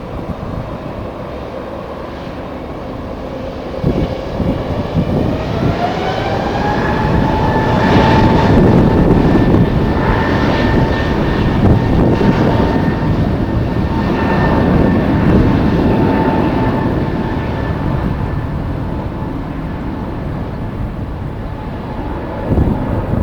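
Jet airliner's engines: a whine rising in pitch a few seconds in, then holding steady over a broad rushing noise that swells and slowly fades, with wind buffeting the microphone.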